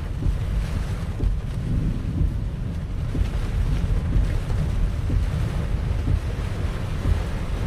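Typhoon wind and heavy rain buffeting a car in slow traffic: a dense, steady low rumble with faint scattered ticks above it.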